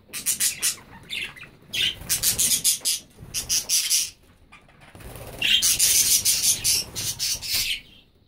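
Budgerigars chattering and squawking in several bursts of rapid, high-pitched notes, the longest lasting about three seconds in the second half.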